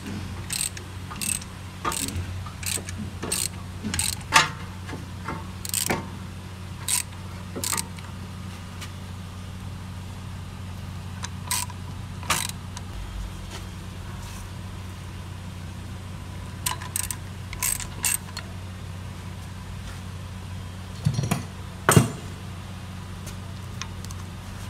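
A ratchet wrench clicks steadily, about one click every two-thirds of a second, as it turns the screw of a brake caliper piston compressor and pushes the caliper piston back. Scattered metal clicks follow, then a sharp knock near the end, the loudest sound, as the tool and the old brake pad are handled. A steady low hum runs underneath.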